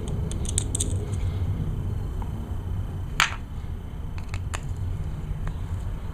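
Small metal clicks and taps from tools and parts while the pump-side cover is taken off a small hedge-trimmer carburetor, with one sharper click about three seconds in, over a steady low hum.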